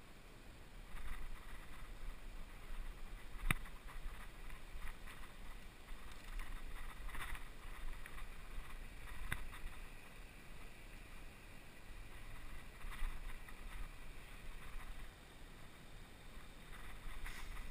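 Wind buffeting the microphone of a body-worn action camera as a low rumble, with scratchy handling noise and two sharp clicks about six seconds apart.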